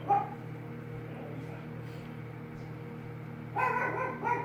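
Microwave oven running with a steady low hum while it cooks instant oatmeal. Near the end comes a brief high-pitched whining call.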